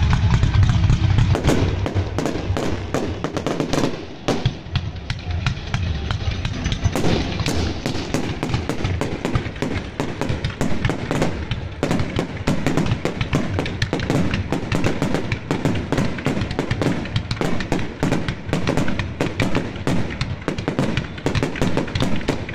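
Aerial fireworks shells bursting overhead in rapid succession: a dense, continuous run of booms and crackles.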